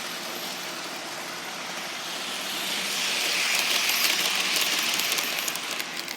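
Model electric locomotive running along the track: a steady motor hum under the rattle of wheels on rails. The rattle grows louder midway and fades near the end.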